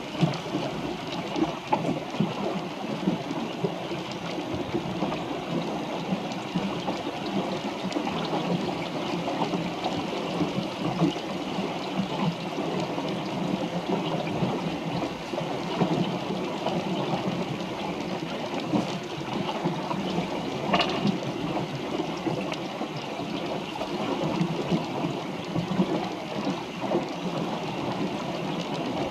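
Water rushing and splashing along a small sailboat's hull, a steady fluttering wash, with one sharp knock about two-thirds of the way through.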